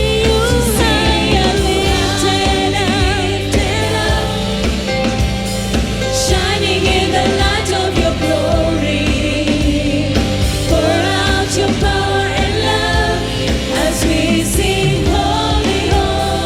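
Gospel worship song with group singing over a full band backing, a steady bass line and beat.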